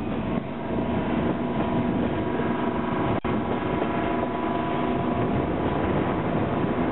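Diesel locomotive hauling the train, its engine drone steady with several held tones, heard from an open coach window over rumbling running noise and wind on the microphone. The sound drops out for an instant about three seconds in.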